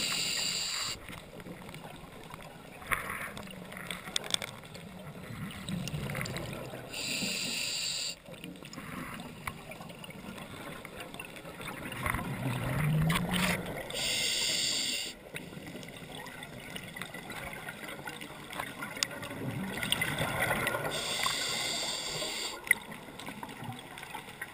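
Scuba diver's regulator exhausting bubbles underwater: four hissing, bubbling bursts of about a second each, roughly seven seconds apart, the first ending about a second in, with a low muffled background between breaths.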